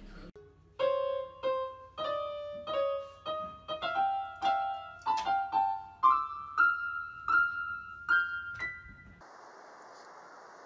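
Electronic keyboard sounding single notes one after another, about two a second, climbing gradually higher in pitch, as a poodle presses the keys. The notes stop about nine seconds in, and a faint steady hiss follows.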